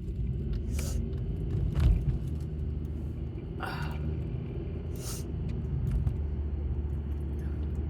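Low rumble of strong wind buffeting a car, with a few brief crinkles of cellophane snack wrappers.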